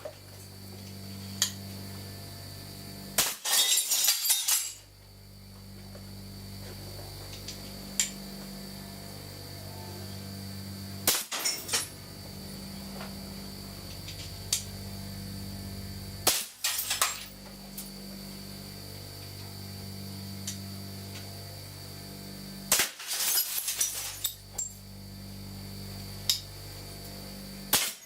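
Four sharp shots from a compressed-air gun firing slugs at about 400 psi, several seconds apart, some followed by a second or so of breaking and tinkling glass. Between the shots an air compressor hums steadily.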